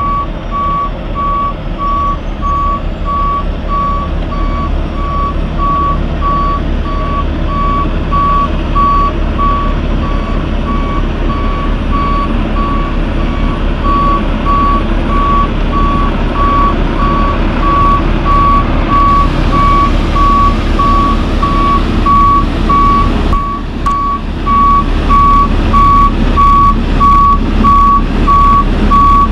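Backup alarm beeping steadily on one tone over the low running of a heavy-haul lowbed truck's diesel engine as the truck reverses. Near the end, a run of sharp clicks and knocks comes in over it.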